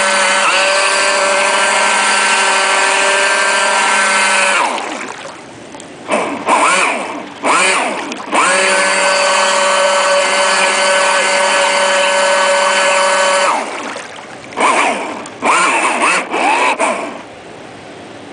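A radio-control boat's motor, heard close up from aboard the boat: a steady high whine held for about four and a half seconds, then a few short throttle blips, another steady run of about five seconds, and more short blips near the end.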